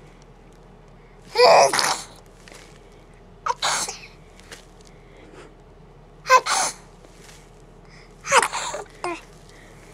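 A 7-month-old baby fake-sneezing four times, a couple of seconds apart. Each is a short, breathy sneeze sound put on deliberately rather than a real sneeze.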